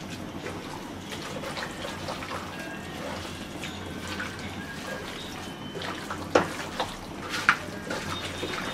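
A hand kneading raw bone-in beef chunks coated in yogurt, ginger-garlic paste, spices and oil in a pot: steady wet squelching and squishing, with two sharp clicks about six and a half and seven and a half seconds in.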